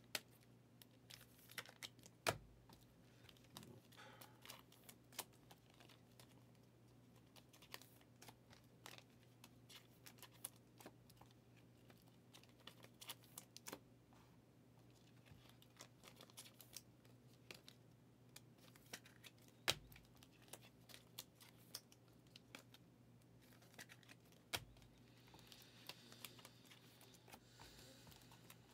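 Faint, scattered clicks and taps over a low steady hum, with a few sharper knocks about two seconds in and twice more late on.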